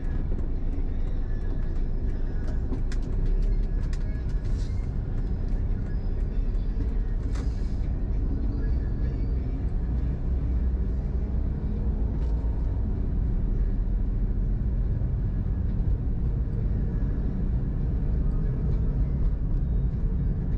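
Steady low road and engine rumble heard inside a moving car's cabin, with two brief hisses a few seconds in.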